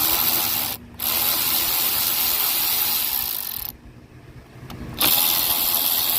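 Ratchet wrench with an 8 mm socket clicking as it loosens the carburetor mounting screws, in three stretches separated by short pauses.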